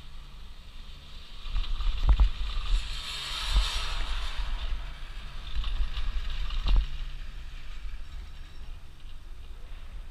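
Wind buffeting the microphone of a camera riding an open chairlift, a low rumble that swells and fades, with a hiss building in the middle. Two sharp knocks come from the lift, one about two seconds in and one near seven seconds.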